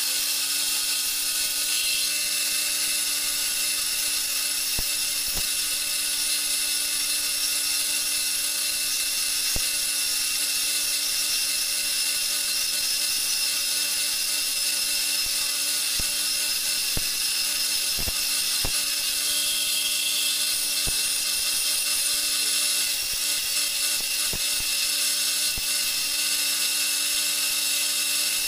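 Homemade wood lathe running with a steady motor hum while a hand chisel cuts the spinning wooden spindle, giving a steady high hiss with occasional sharp clicks.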